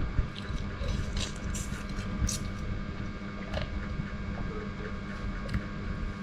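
Eating salted crab: scattered sharp clicks and crackles of crab shell being cracked and chewed, over a steady hum.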